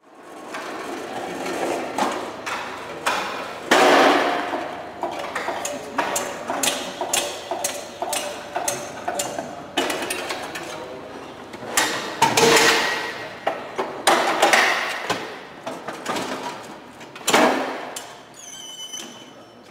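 Forklift battery being rolled out of an electric forklift onto a battery-change cart's roller bed: a string of metal knocks, clunks and rattles with several louder rumbling swells as the heavy battery slides over the rollers. A brief high tone sounds near the end.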